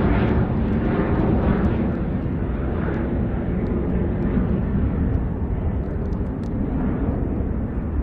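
Jet engine roar of a J-AIR Embraer twin-turbofan regional jet climbing away after takeoff, a broad rumble that slowly fades as the aircraft recedes.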